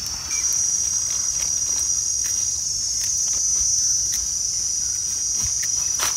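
Insect chorus buzzing steadily at a high pitch, stepping up in loudness about a third of a second in. A few light clicks and scrapes come from a knife trimming soil off a mushroom stem.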